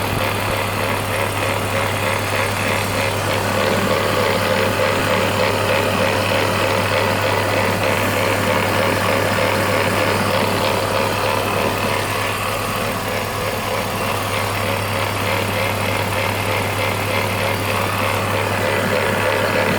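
BMW E46 330Ci's M54 3.0-litre straight-six engine idling steadily, with a grinding noise in its running.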